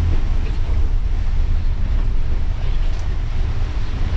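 Inside a coach driving on a rain-soaked road: steady low engine and road rumble under an even hiss of tyres on water and rain.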